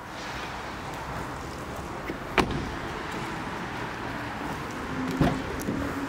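Kia Rio's door being worked as someone climbs out of the car: a sharp latch click about two and a half seconds in and another knock near the end, over rustling from movement.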